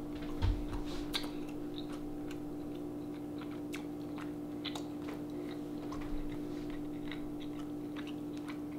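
A person chewing a mouthful of hot baked lake trout with the lips closed: scattered small wet mouth clicks over a steady low hum, with a soft bump about half a second in.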